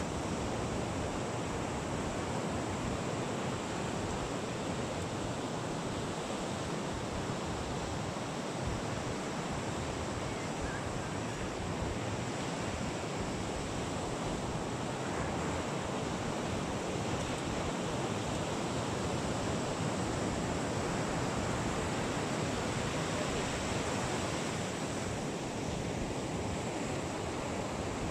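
Steady rush of ocean surf mixed with wind on the microphone, an even noise with no distinct knocks or voices.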